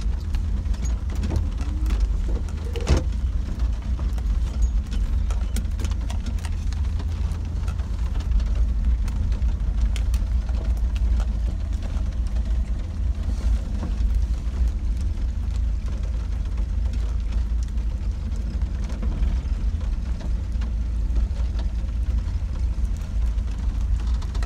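Inside a car driving in rain: a steady low engine and road rumble, with raindrops ticking irregularly on the windshield and one louder tap about three seconds in.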